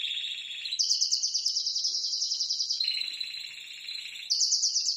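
Spanish Timbrado canary singing continuous rapid trills, switching back and forth between a lower and a higher pitch: about a second in it jumps up, near three seconds it drops back down, and it rises again shortly after.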